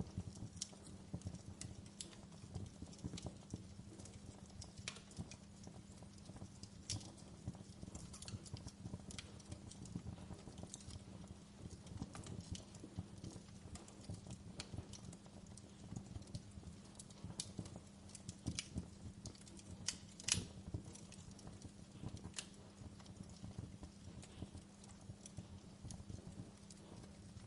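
Wood fire crackling: irregular sharp pops and snaps over a low, steady rumble, with one louder pop about twenty seconds in.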